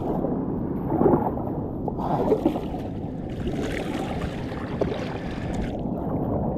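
Kayak paddle strokes through sea water, the blades splashing in a few times over a steady wash of water against the kayak's hull.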